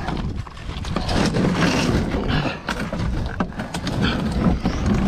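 Rumbling wind and handling noise with scuffling and scraping as several people haul a heavy load up out of the river on a magnet rope, with a few faint strained voices.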